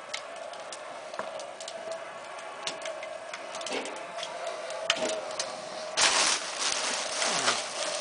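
Sharp ticks and crackles over a steady hum during a raku firing. About six seconds in comes a loud hissing sizzle, lasting over a second, as red-hot raku pottery is plunged into a bucket of water and throws up steam.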